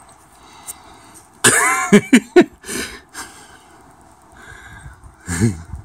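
A man coughing and clearing his throat: a harsh burst about a second and a half in, a few short coughs after it, and another short throaty sound near the end.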